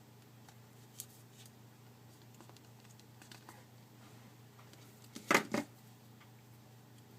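Plastic pry tool working the snap clips of a Samsung Galaxy Note 2's plastic frame: a few faint clicks, then a short, loud double crackle of plastic about five seconds in as a retaining clip releases. A faint steady hum runs underneath.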